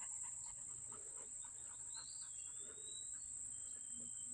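A steady, high-pitched insect chorus, with a single whistled bird call that dips and then slides back up about two seconds in.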